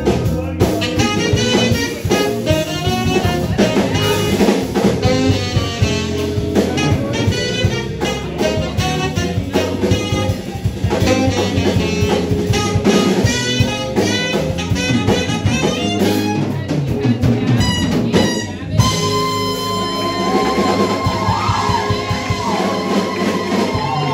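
Live jazz band: tenor-style saxophone playing lead lines over electric guitar and a drum kit, with a steady beat.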